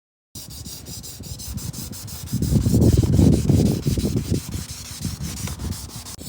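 Abrasive sanding on the surface of a carbon fiber car spoiler: continuous rubbing and scrubbing strokes, louder and heavier for a couple of seconds in the middle.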